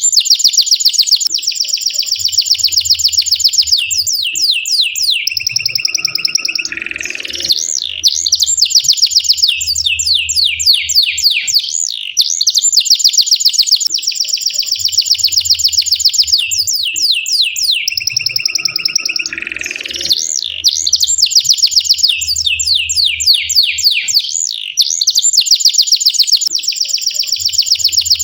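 Domestic canary singing a long rolling song of fast trills and sweeping notes, phrase after phrase without a break.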